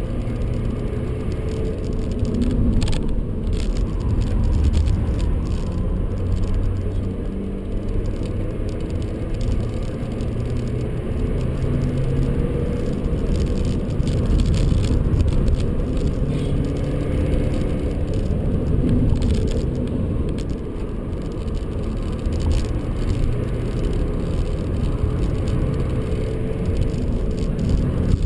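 BMW 125d's two-litre four-cylinder turbodiesel heard from inside the cabin at speed. Its note climbs under acceleration and drops back as the car slows for bends, over a steady tyre and road rumble.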